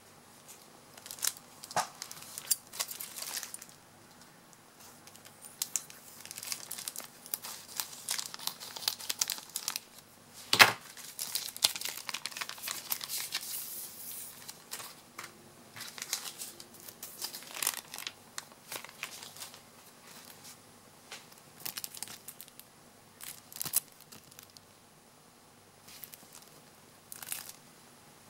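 Plastic packaging crinkling and rustling in bursts as a sheet magnifier is handled and unwrapped from its plastic bag. There is one sharp click about ten seconds in.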